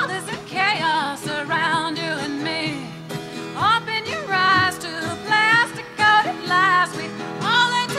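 A woman singing the opening lines of a song, with wide vibrato and swoops up into the start of phrases three times, over instrumental backing.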